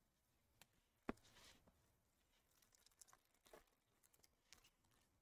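Near silence, broken by a few faint clicks and taps, the sharpest about a second in, from trading cards and foil card packs being handled.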